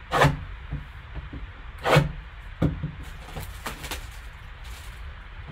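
Handling of a trading-card box and its packaging: a few short rustles and taps, the loudest about a quarter second in and about two seconds in, over a low steady hum.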